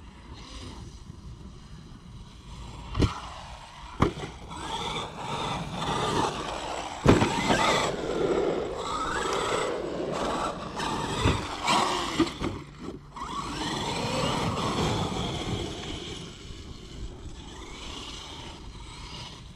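Traxxas XRT electric RC monster truck driving on rough ground. Its brushless motor whines, rising and falling with the throttle, over tyre and drivetrain rumble. There are sharp thuds about 3, 4, 7 and 11 seconds in as the truck hits the ground.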